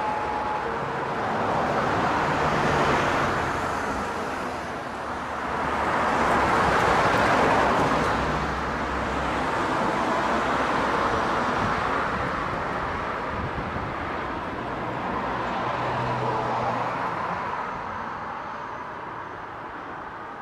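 Road traffic: vehicles passing on a busy road, the engine and tyre noise swelling and fading several times and dying away near the end.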